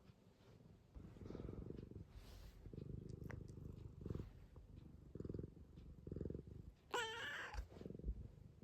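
Domestic cat purring, a low rumble that swells and fades with each breath. About seven seconds in it gives one short meow.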